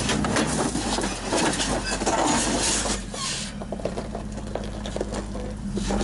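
Solid-axle-swapped 2001 Nissan Xterra crawling over a rock ledge: the engine runs low and steady while the tyres crunch and click over rock and loose gravel. The crunching is heaviest in the first half.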